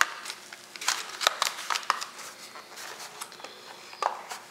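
Plastic blister pack of a Hot Wheels car being worked open from its card backing: scattered crackles and sharp plastic clicks.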